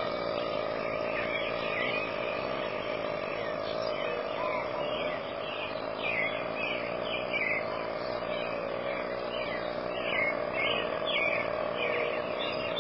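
A steady night chorus of frogs and insects: a constant trilling hum with short chirps repeating a couple of times a second.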